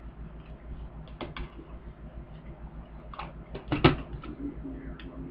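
Scattered light clicks and taps of kitchen utensils and containers being handled, with one sharper knock about four seconds in, over a low steady hum.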